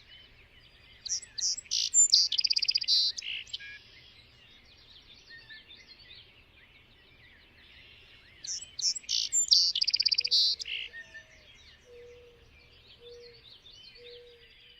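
Birdsong: one bird sings a loud phrase twice, about seven seconds apart, each a few sharp notes running into a fast trill, over a background chorus of many faint chirping birds. A few low short notes come in the second half.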